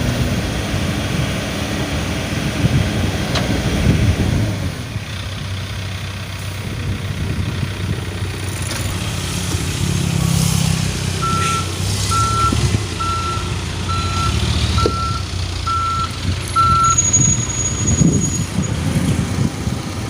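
Heavy diesel engines of a dump truck and excavator running under load, with a reversing alarm beeping seven times, about once a second, partway through.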